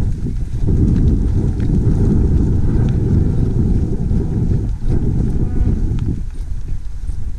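A herd of cattle moving past, nearly buried under a heavy, uneven low rumble of wind on the microphone. A cow moos briefly about five and a half seconds in.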